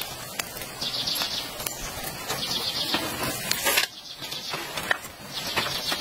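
Rustling and scattered light knocks and creaks as a person climbs a bamboo ladder and settles into a palm-leaf hut, with a brief louder rustle a little before the middle.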